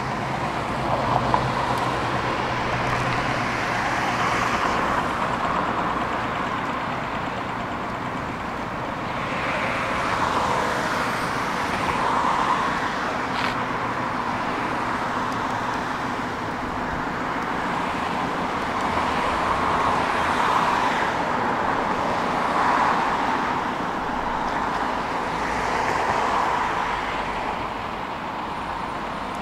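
Steady running noise of vehicles, rising and falling every couple of seconds.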